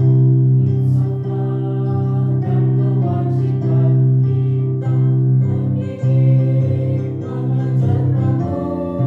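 Elementary-school choir singing with instrumental accompaniment, holding long sustained notes.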